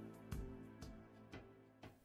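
Quiet background music with held notes and a steady beat of about two strikes a second.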